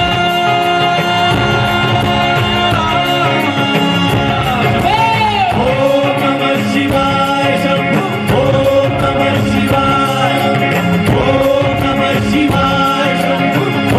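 Live stage music: a male singer sings into a microphone over an amplified band with drums, with a long sliding vocal phrase about five seconds in.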